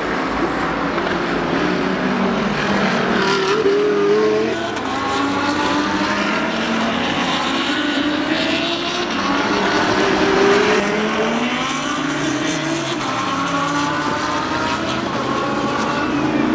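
GT3 race cars passing one after another at racing speed, their engines rising in pitch through the gears and dropping on downshifts. Loudest about four seconds in and again around ten seconds.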